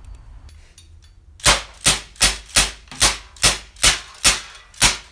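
KJ Works MK2 airsoft pistol fired rapidly, about ten sharp shots at a steady pace of two to three a second, starting about a second and a half in.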